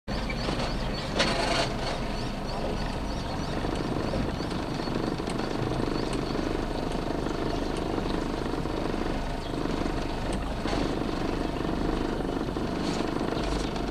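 Yamaha outboard motor running slowly at low revs, a steady low drone. A brief louder noise cuts across it about a second in.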